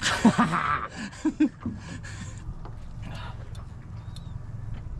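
A man's short vocal sounds over a loud rush of noise during the first two seconds, then steady wind and sea noise on an open boat.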